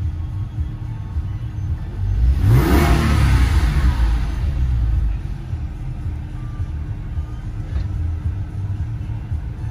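2006 Porsche 911 Carrera 4's flat-six engine idling, then revved once while the car stands still. About two seconds in the pitch rises quickly and the engine holds near 3,000 rpm for about two seconds, louder, before dropping back to an idle of about 1,000 rpm. Heard from inside the cabin.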